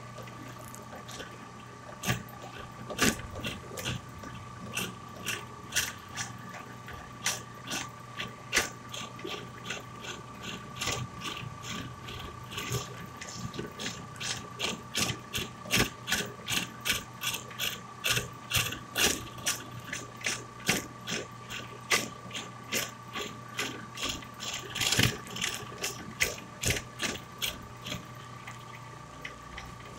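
A hand tool chipping wood out of a wooden airgun stock: a run of sharp clicks and scrapes, a few strokes a second in irregular bursts, over a steady faint hum.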